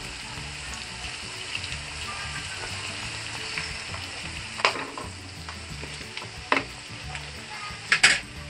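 Pork spare ribs with garlic, onion and tomato sizzling steadily in a nonstick wok while a wooden spatula stirs them. A few sharp knocks and scrapes of the spatula on the pan come in the second half, the loudest near the end.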